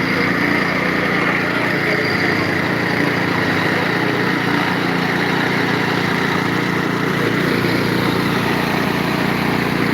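Engine of concrete-pouring machinery running steadily and loudly, with no change in pace.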